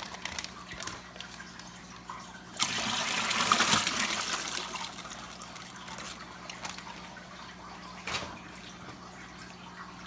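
Water poured out of a plastic fish shipping bag through a mesh hand net into a plastic bucket. It starts with a splashing pour about two and a half seconds in, lasting a couple of seconds, then dwindles to trickling and dripping.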